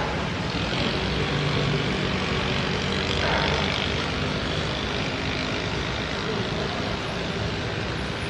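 Heavy rain falling steadily, with a low vehicle rumble beneath it.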